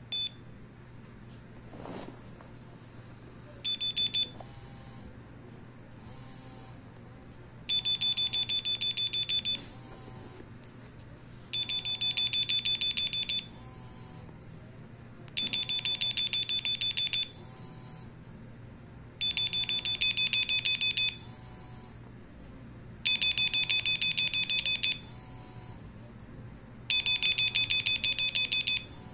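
Nokia 2112 mobile phone's built-in alarm going off: a brief beep, a short burst about four seconds in, then bursts of rapid high-pitched beeps about two seconds long, repeating every four seconds or so.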